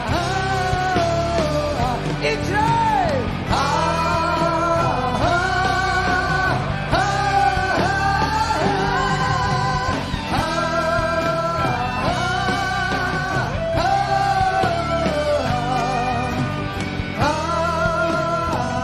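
Live rock band playing the instrumental opening of a Mandopop rock ballad: a lead melody of held notes with vibrato in short repeated phrases, over guitars, bass and drums.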